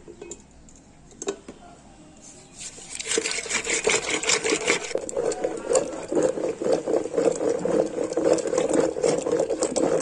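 Wooden dal ghutni churning yogurt, cream and sugar in a steel pot: a rapid, continuous clatter of wood against the steel with the thick liquid sloshing, starting about three seconds in after a quieter start with a single knock.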